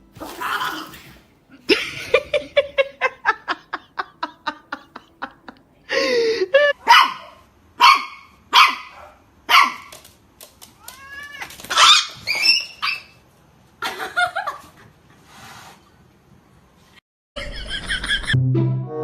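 Dog barking, a string of separate sharp barks about a second apart.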